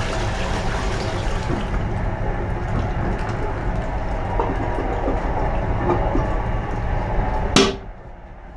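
An Armitage Shanks Melrose wall-hung toilet's flush tails off about two seconds in, leaving water trickling into the bowl as it refills, over the steady rumble of the moving train. Near the end there is one sharp, loud knock as the toilet lid is shut.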